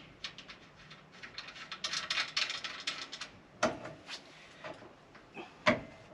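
Small metal tools and hardware rattling and clicking against each other for about three seconds, then two sharp metallic clinks about two seconds apart, the second the loudest.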